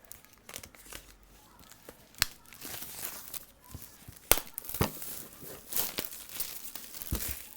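Plastic wrapping being torn and peeled off an iPad Air box: crinkling, tearing noise broken by several sharp clicks and taps.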